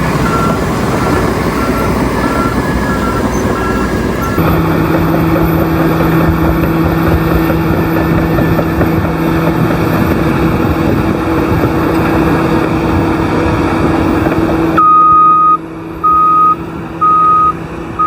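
Heavy earthmoving machinery running with a reversing alarm beeping about twice a second. About four seconds in, the beeping stops abruptly and a steady engine drone goes on. Near the end, a louder backup alarm starts beeping about once a second.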